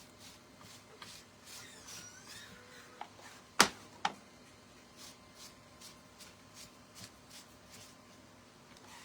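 Quick, even rubbing strokes, about two or three a second, of an abrasive worked by hand over wood to distress it, with two sharp knocks close together about three and a half seconds in.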